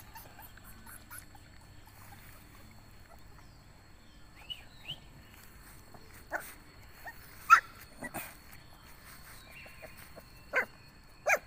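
Month-old Bắc Hà puppies giving short yelps and squeaks while jostling at a water basin. There are several brief cries in the second half, the loudest about halfway through.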